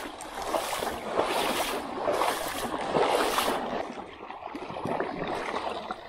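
River water sloshing and swirling around an angler's legs as he wades, coming in repeated surges.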